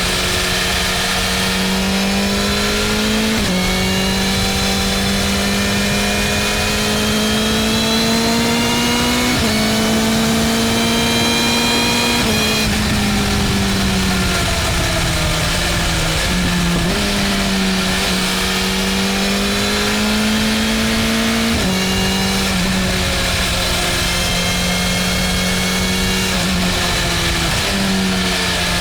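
BMW M1000R's inline-four engine pulling along at a fairly steady pitch that creeps upward, then falls abruptly several times, as when shifting gear or rolling off the throttle, over a steady rushing noise.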